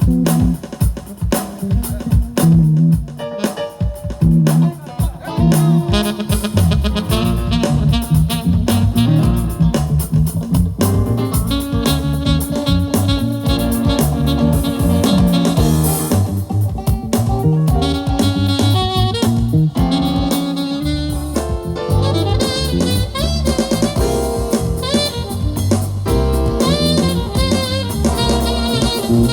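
Loud music with a drum kit beat and a melody line, played through a sound system at a sound check.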